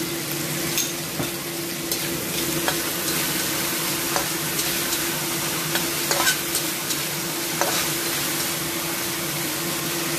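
Minced pork, chilies and garlic sizzling in a wok with an oyster-sauce and soy-sauce mixture just added, as a metal spatula stirs and scrapes them, giving short scrapes and knocks every second or two. A steady low hum runs underneath.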